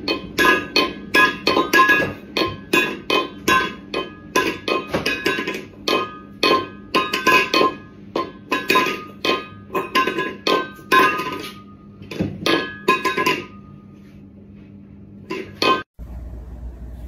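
Metal food bowl clanking and ringing as a cat bangs it on a hard kitchen floor, about two clangs a second, each ringing at the same pitches; they stop near the end, with two last clangs just before the sound cuts off.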